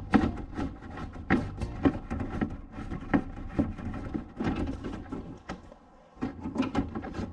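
Repeated plastic clicks and knocks as the front cover of a TECO MD1401WA dehumidifier is worked loose from its housing, with a short quieter stretch near the end.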